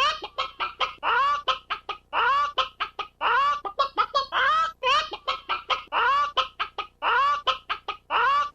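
Hen clucking over and over in the Sound Ideas 'Funny Hen Clucks' effect. Each round is a drawn-out squawk that bends up and down, then three or four quick clucks, and the rounds repeat about every second and a quarter.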